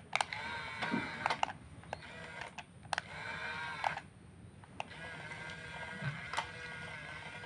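Small electric motors and gears of a radio-controlled construction model whining in several short runs with brief pauses, with sharp clicks scattered through.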